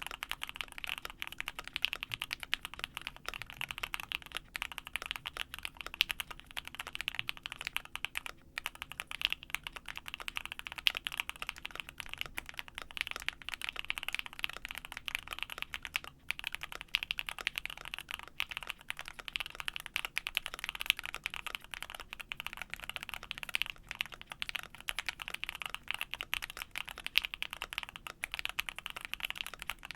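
Steady, fast typing on a Vega 65 gasket-mount mechanical keyboard with lubed JWK Halu Halo linear switches, an aluminium plate and case foam: a dense stream of keystroke clacks, with brief pauses about eight and sixteen seconds in.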